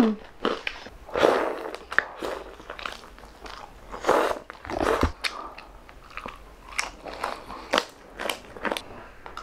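Close-miked mukbang eating: crunchy bites into crispy fried chicken and crispy pork crackling, with chewing between them. The crunches come irregularly, about one every second.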